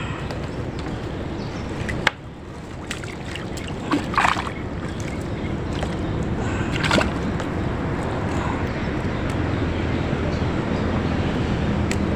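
Water sloshing and splashing as a wet fishing net is pulled and handled at the water's edge, with a few short knocks and splashes. A low steady hum comes up in the second half.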